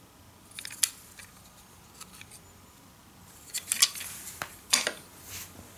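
Light clacks and knocks of wooden toy train engines being handled and set down on a hardwood floor: a sharp click about a second in, then a cluster of clacks in the second half.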